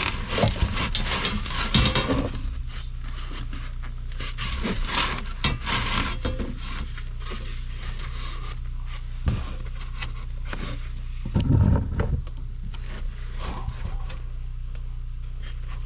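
Irregular scraping and rubbing as a straight edge is handled on a sheet of rigid foam insulation board and a cut line is drawn along it, with a steady low hum underneath.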